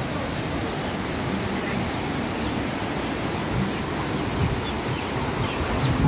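Waterfall rushing steadily: an even hiss of falling water, with low, uneven rumbling underneath.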